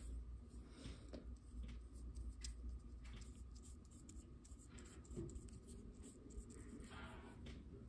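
Faint scratching of a paintbrush laying acrylic paint onto paper in short, irregular strokes.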